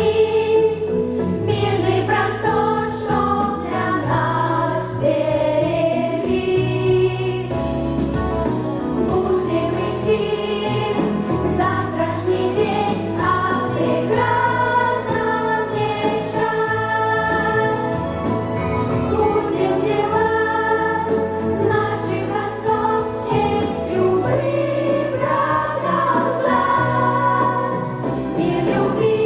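Vocal pop ensemble singing a song together over instrumental accompaniment with a steady bass line and light percussion.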